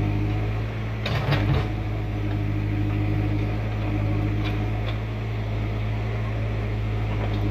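A heavy diesel engine running steadily at constant speed, with a few short knocks about a second in and again around four and a half seconds.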